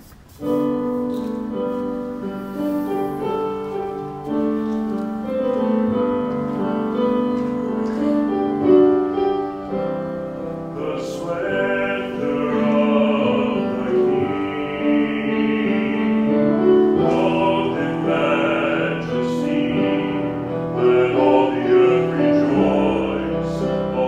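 A hymn played on piano starts about half a second in, with held chords. From about halfway through, voices seem to join in singing over the accompaniment.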